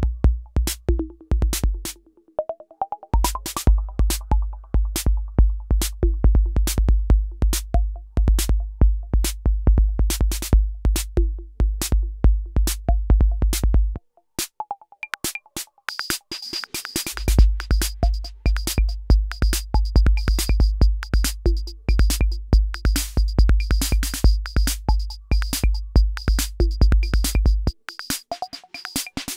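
Roland TR-6S drum machine playing a techno-style pattern: a steady bass drum under fast hi-hat ticks, with short pitched percussion notes. The bass drum cuts out briefly about two seconds in, for a few seconds from about fourteen seconds in, and again near the end, as its level and sound are tweaked live.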